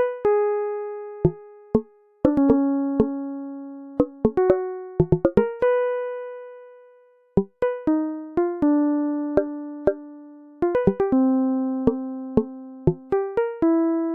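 Background music: a slow, sparse melody of single keyboard notes, each struck sharply and left to ring and fade.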